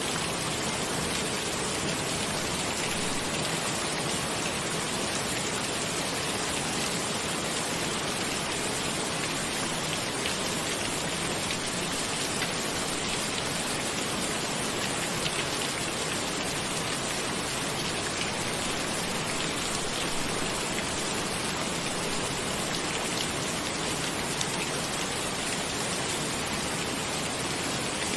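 Steady rain, an even hiss with faint, fine drop ticks scattered through it.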